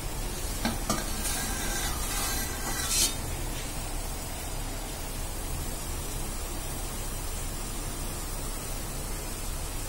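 A steel plate lid clinks twice and scrapes as it is lifted off a steaming pot, with a short rush of hiss ending sharply about three seconds in. A steady hiss from the steaming pot on the gas flame runs beneath.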